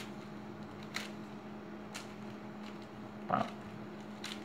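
Hands turning the layers of a MoYu Meilong 6x6x6 plastic speed cube, giving a few faint sharp clicks about a second apart, with a brief, louder, lower sound a little over three seconds in. A steady low hum runs underneath.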